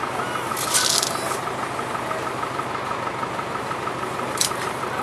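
A steady mechanical hum like an idling engine, with a short rustling hiss about a second in and a sharp click near the end.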